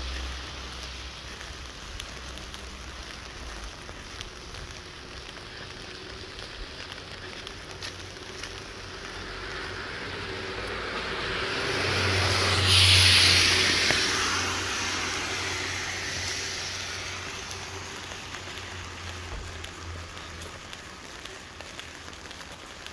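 Steady rain hiss with a car passing on the wet road. The swish of its tyres through the water builds, peaks about halfway through, then fades away.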